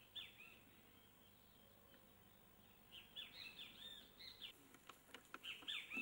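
Small bird chirping: short arched notes, one just after the start, then a quick string of them about three seconds in and another burst near the end, faint over a quiet background.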